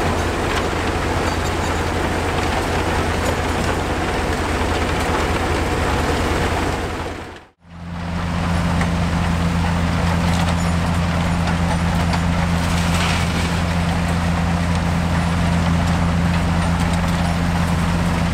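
Heavy diesel demolition machinery at a rubble-crushing site running steadily: a low engine drone under a broad rushing noise. About seven and a half seconds in, the sound fades out briefly and comes back with a second, higher steady hum added.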